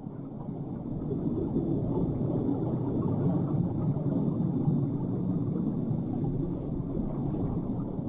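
Steady, low underwater rumble of moving seawater, with no distinct events.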